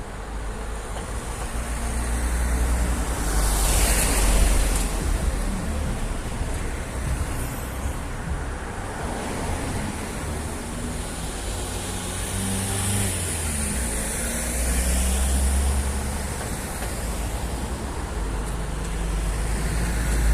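Road traffic going by on a street: passing cars swelling up about four seconds in and again later, over a steady low rumble.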